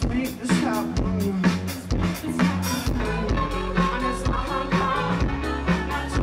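Music with a steady drum beat over a bass line.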